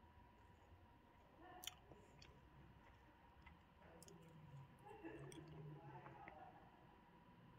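Near silence: quiet room tone with a faint steady hum and a few faint clicks, the sharpest a little under two seconds in.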